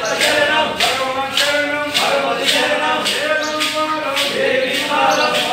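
A group of voices singing a devotional Swami (Ayyappa) chant together, with a sharp beat about twice a second keeping time.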